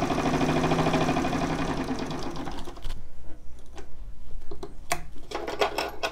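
1930 Singer Model 66 straight-stitch sewing machine stitching a short stitch length through denim with a fast, even rhythm, running fairly smooth and very quiet, then slowing to a stop a little under three seconds in. After that, a few separate sharp clicks and knocks as the fabric is handled at the machine.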